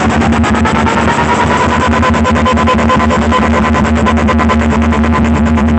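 Electronic DJ music blasting from a towering stack of DJ 'box' loudspeakers. It starts abruptly, with heavy bass, a fast even pulsing beat and a held synth tone.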